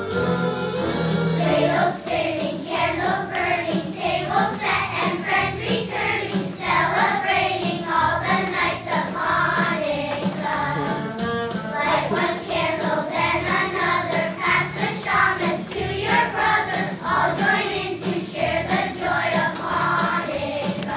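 A song with instrumental backing, sung by a choir that comes in about two seconds in.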